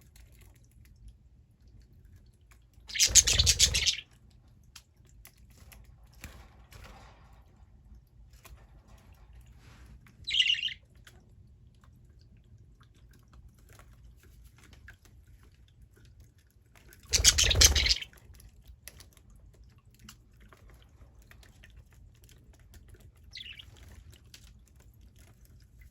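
Budgerigars chirping: two short chirps, the second fainter. Two loud bursts of about a second each, the loudest sounds, come about three seconds in and again about seventeen seconds in.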